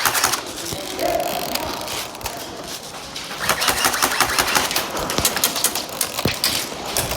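Airsoft guns firing in rapid bursts, a fast clatter of shots that is thickest around the middle of the stretch.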